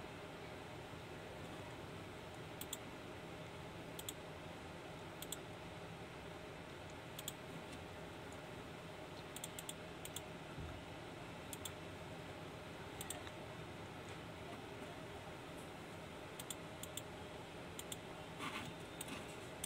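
Scattered sharp clicks, some in quick pairs, from operating a computer, over a faint steady hum.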